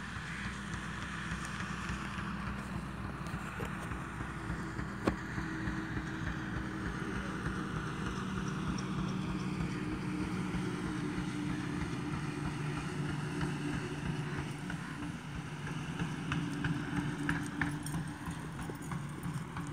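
A horse's hoofbeats as it runs, with a steady engine hum throughout.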